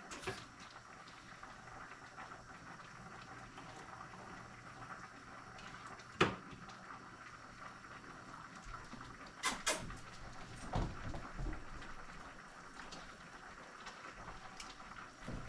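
Kitchen work noises: several sharp knocks and clatters of utensils, dishes or cabinet doors, the loudest about six seconds in and a quick pair a few seconds later, over a steady faint hiss.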